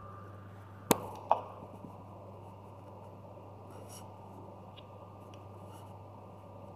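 Faint handling of cloth over a steady low hum, with two sharp clicks close together about a second in; no stitching rhythm from the embroidery machine.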